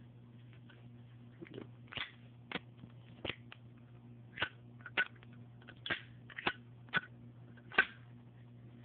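Zippo lighter clicking: a series of about nine sharp metallic clicks at irregular spacing, the sound of its hinged lid being flicked open and snapped shut.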